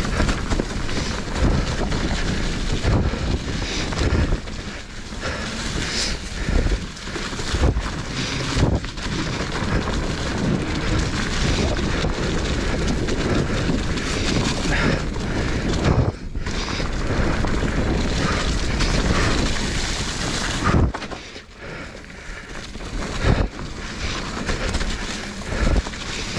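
Wind rushing over the camera microphone as a Meta HT hardtail mountain bike descends a rocky trail, with tyres rumbling and the bike knocking and rattling over rocks; it eases briefly about three-quarters of the way through.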